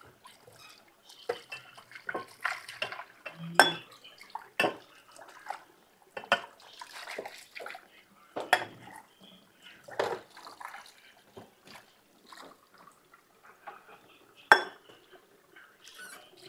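A metal pot being washed at the kitchen sink: water splashing while the pot knocks and clanks against the sink and utensils again and again, with the sharpest clank near the end.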